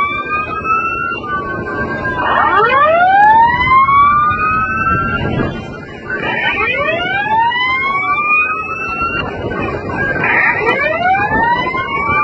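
Several sirens wailing at once, each tone rising in pitch over a couple of seconds and then starting again about every four seconds, the cycles overlapping out of step, over a steady rumble of background noise.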